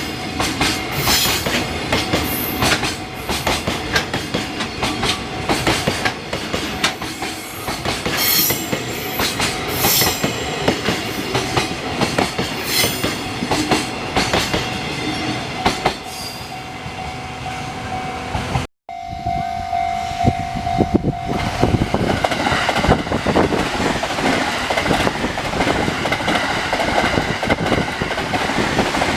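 Train running through a level crossing, its wheels clicking rapidly over the rail joints. After a sudden break about two-thirds of the way in, a horn sounds one steady note for about two seconds while the rumble of the train goes on.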